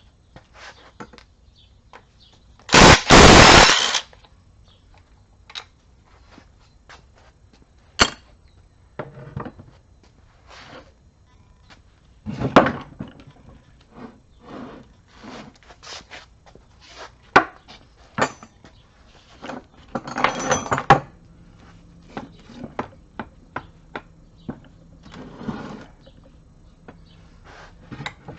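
Scattered clinks and knocks of tools and metal parts as an NP229 transfer case is taken apart. A loud, rapid rattling burst of about a second comes about three seconds in, and a weaker cluster comes near twenty seconds.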